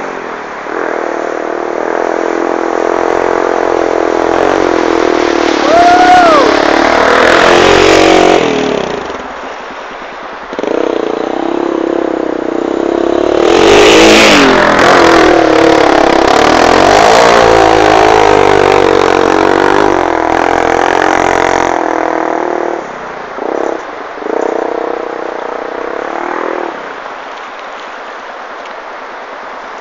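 Honda 400EX sport quad's single-cylinder four-stroke engine being ridden, revving up and down with the throttle. There are two louder stretches of hard acceleration, and it settles to a quieter, lower run near the end.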